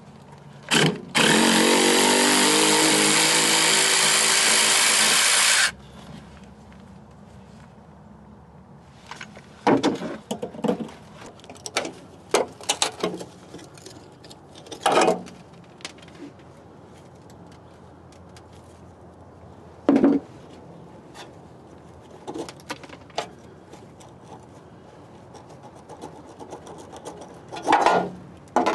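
A handheld power tool runs for about four and a half seconds, its motor pitch rising as it spins up, while the old muffler bracket is being removed. After it stops, there are scattered short knocks and clicks as the parts are handled.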